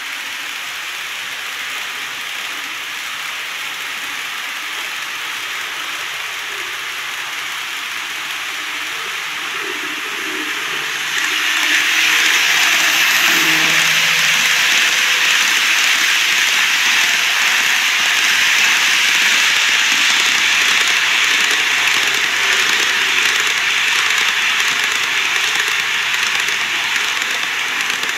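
TOMIX N-gauge model trains running on plastic track, their wheels and motors making a steady rushing hiss. It gets louder about eleven seconds in as a train passes close.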